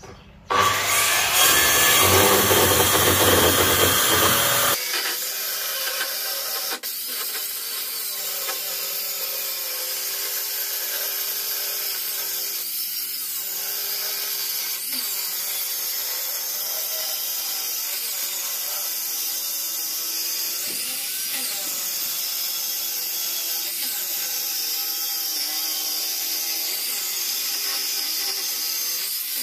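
Handheld circular saw ripping a wooden board, its motor running under load. It is loudest for the first four seconds or so, then settles to a steady whine with small dips in pitch every few seconds.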